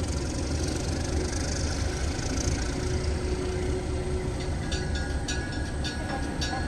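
MLW S-13u diesel switcher locomotive running with a low, steady rumble as it pulls boxcars. About four and a half seconds in, a bell starts ringing in a steady, even rhythm.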